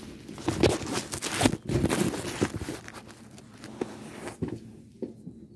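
Handling noise from a phone being gripped and moved by hand, with close rustling and scraping of fabric, loudest and busiest in the first half, then dying down to a few soft rustles.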